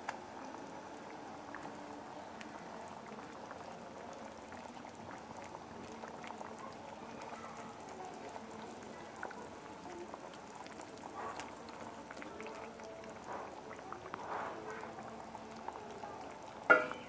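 Hilsa fish and taro curry boiling in a frying pan: a steady soft bubbling with a few faint clicks, and one short loud knock near the end.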